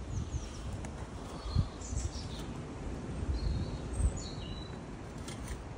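Small birds chirping in short, high calls, over a low rumbling noise on the microphone with a couple of soft bumps.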